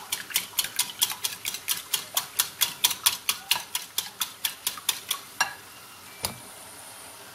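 Wire whisk beating eggs in a ceramic bowl, its wires clicking against the bowl about five times a second. The whisking stops about five and a half seconds in, followed by two knocks, and a faint steady sizzle from the pan of asparagus stewing on the stove remains.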